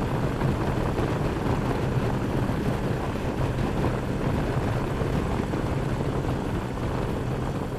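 Motorcycle engine running steadily under way, with wind and road noise, heard from the rider's seat.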